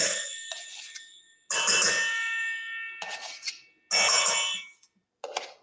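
Metal spoon knocking against a stainless steel mixing bowl while dropping yogurt into it, about four strikes, each leaving the bowl ringing and fading out.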